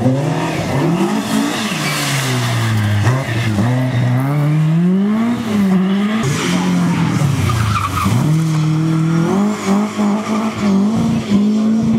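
Historic rally car engines revving hard through the gears as the cars power through corners one after another, the pitch climbing and falling off several times. Tyres skid on the loose surface.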